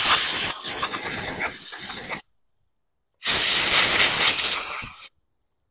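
Compressed air blown in two long blasts, a loud hiss. The first eases off and stops about two seconds in; the second starts after a second's pause and lasts nearly two seconds.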